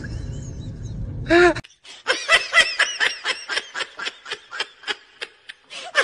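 High-pitched laughter in quick breathy bursts, about four a second, starting about two seconds in. Before it, a short voice sound over low rumbling noise that cuts off suddenly.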